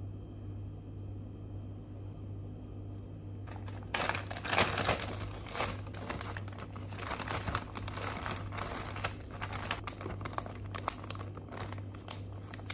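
Clear plastic zip-top bag crinkling as a sandwich is slipped into it and the seal is pressed shut. The crinkling starts about four seconds in, over a low steady room hum, and goes on in quick uneven crackles.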